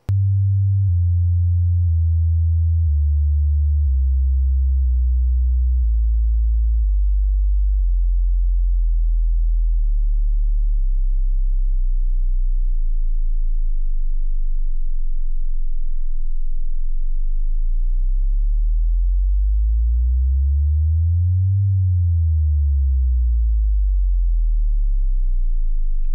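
Loud, deep electronic sine tone that slides down in pitch over the first several seconds and then holds steady. About two-thirds of the way through, a second tone sweeps up and back down over it, the pair wavering against each other.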